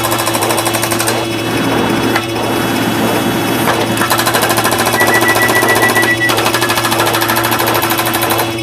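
A dense pile of synthetic sound effects looped and layered at once: a fast, machine-like rattle of repeated hits over steady held tones, with a fast-pulsing high beep about five seconds in.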